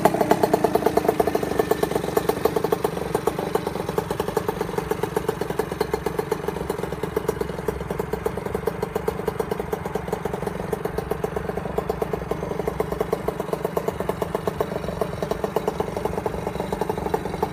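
Small 50cc pit-bike engine idling on the stand with a fast, even beat, easing down in the first couple of seconds and then holding steady.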